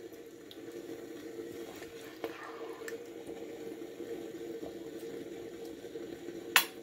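Beef-and-broccoli gravy simmering in a wok over a steady low hum, with soft squishing and scraping as a plastic spoon scoops the food onto a plate. One sharp tap comes near the end.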